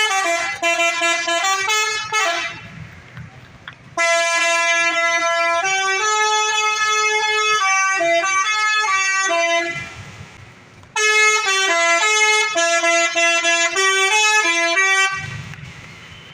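Indonesian bus telolet horn on a Fajar Transport bus playing a stepping multi-note melody. It plays in three runs: a short one at the start, a long phrase from about 4 s to nearly 10 s, and another from about 11 s to 15 s, with quieter gaps between.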